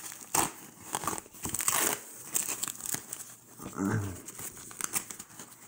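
Plastic film and foam packing wrap crinkling and tearing in irregular bursts as it is pulled off a boxed kit. A short low hum comes about four seconds in.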